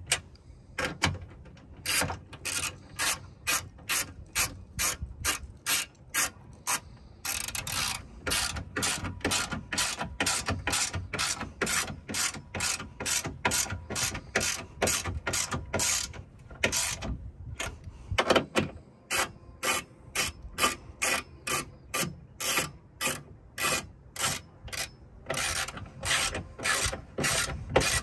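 Hand socket ratchet clicking steadily, about three clicks a second, as the tow mirror's mounting nuts are run down. The clicking breaks off briefly a few times, with the longest pause a little past the middle.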